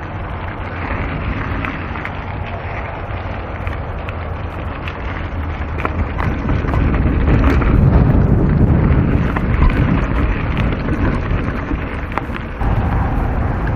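Mountain bike riding on dirt singletrack: a steady rumble of wind buffeting the microphone and tyres on the trail, with scattered rattling clicks from the bike. The noise grows louder from about six seconds in and eases a little near the end.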